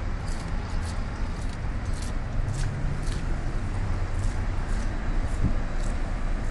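Steady low rumble of outdoor ambience on a cruise ship's open deck, with light footsteps ticking about twice a second as someone walks.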